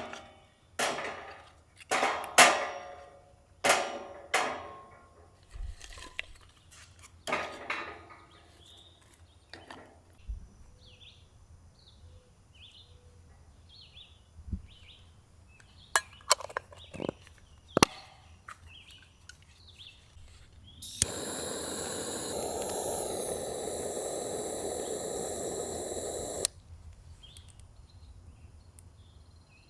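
A series of sharp clinks and knocks of camp gear being handled, some with a short ring. Then small birds chirp repeatedly, and near the end a steady hissing rush runs for about five seconds, starting and stopping abruptly.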